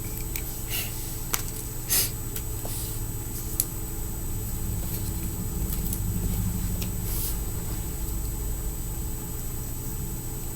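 A few light clicks and taps of tiny fingerboard truck hardware being handled and set into the board's slots, over a steady low hum.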